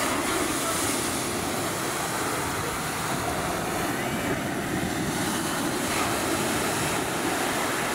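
Ocean surf breaking and washing up the beach: a steady rushing noise with no pauses.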